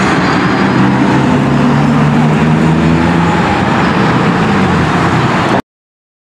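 Steady road-traffic noise with a motor vehicle engine running. It cuts off abruptly near the end.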